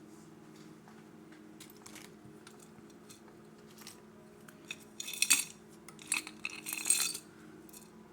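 Small metal jewelry pieces clinking and rattling together as a hand rummages through a jar of mixed jewelry, with a few scattered clicks, then two busier bursts of clinking in the second half, over a steady low hum.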